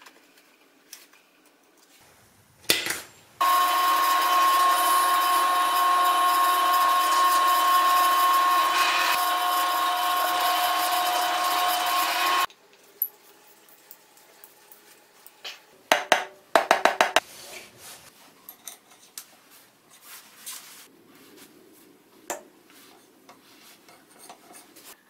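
Drill press running with a steady whine for about nine seconds as a small twist bit drills into a wooden block, then cutting off suddenly. Afterwards come light workshop handling sounds, with a quick run of sharp knocks a few seconds later.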